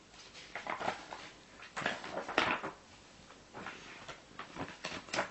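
Paper rustling as a child's picture book is handled, picked up and opened: a run of short rustles and scrapes, the loudest about two and a half seconds in.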